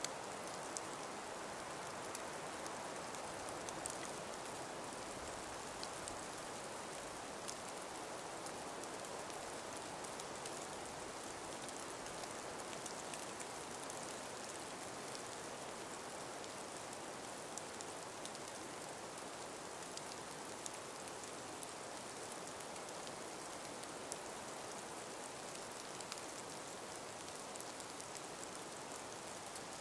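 Calm winter breeze through an ice- and snow-laden forest: a steady, soft, even hiss with scattered faint ticks.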